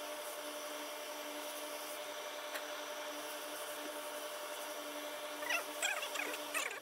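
Heavy tailor's steam iron sliding and rubbing over wool coat fabric, over a steady hiss and low hum. A few short squeaks come near the end.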